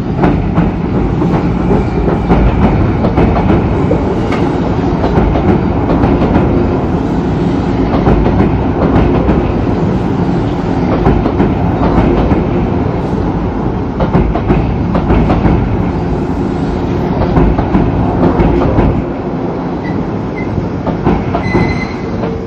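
Izukyu 2100 series 'Resort 21' electric train running close past, wheels clattering over rail joints under the steady rumble of the cars. Near the end the noise eases and a few short, high wheel squeals come in.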